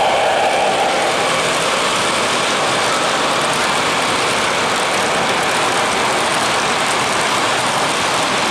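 Model trains running on O-gauge track: a steady rolling noise of metal wheels on the rails with motor hum, as a Weaver GE U25B diesel model in Chessie paint hauls a string of loaded coal hoppers.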